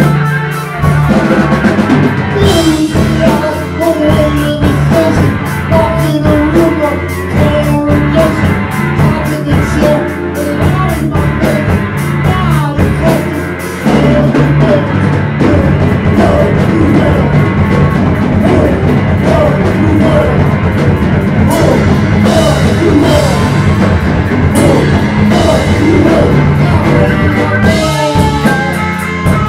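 Live punk rock band playing electric guitar and drum kit, with a singer singing into a microphone. The band gets louder and fuller about halfway through.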